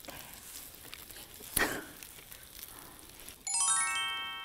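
A single sharp click about a third of the way in. Near the end comes a quick rising run of bright chime tones that ring on together and slowly fade: a sparkly editing sound effect.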